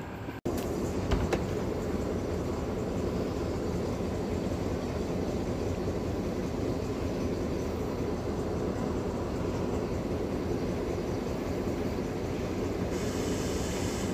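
Passenger train heard from an open carriage window: a steady rumble with no distinct knocks or calls. A higher hiss joins in near the end.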